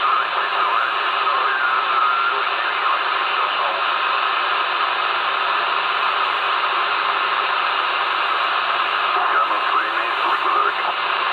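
CB radio receiver hissing with band noise, its squelch open between transmissions, with faint wavering whistles from weak signals near the start and again near the end.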